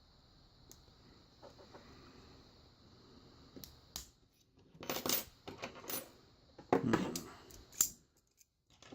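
Metal lock parts and tools clinking and clattering as a Kwikset lock cylinder is handled to be taken apart. Faint taps and rustling come first, then several sharper metallic clicks in the second half.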